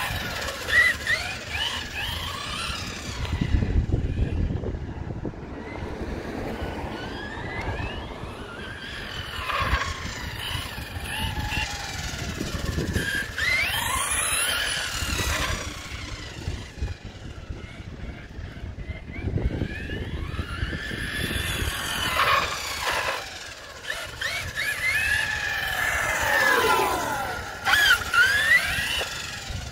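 Traxxas Slash 4X4 RC truck's electric motor and drivetrain whining as it drives on asphalt. The pitch rises and falls again and again with throttle and speed.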